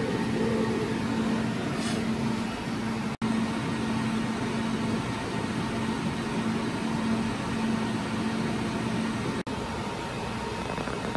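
Steady whooshing hum of server-rack cooling fans, with a constant low tone under it. The sound cuts out for an instant twice, about three seconds in and near the end.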